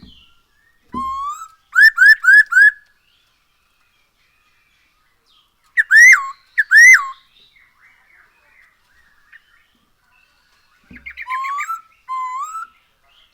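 Black-throated laughingthrush (poksay hongkong) singing loud, clear whistled phrases: a rising whistle followed by four quick upslurred notes, then two loud arched notes partway through, and another rising phrase near the end.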